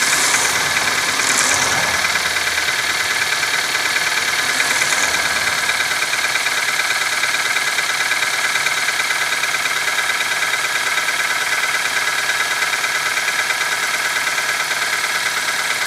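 Nissan QG18DE four-cylinder engine idling steadily with a knocking noise, a knock that shows up when the engine is cold. A few brief hisses come in the first five seconds.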